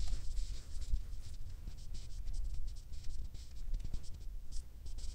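Irregular soft scratching and rustling of hands rubbing over skin and clothing during a face and neck massage, picked up close on a clip-on microphone, with low handling rumble.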